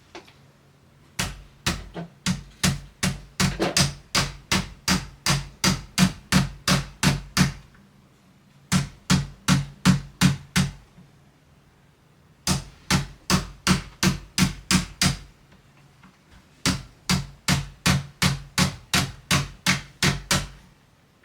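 A hammer tapping rapidly and steadily, about four blows a second, in four runs with short pauses between them, during work on a door-handle installation.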